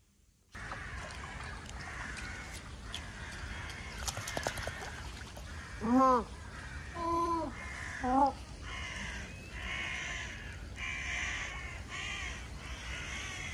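Three harsh calls from a bird, each rising and falling in pitch, about six to eight seconds in, over steady outdoor background noise; a run of short rasping sounds follows.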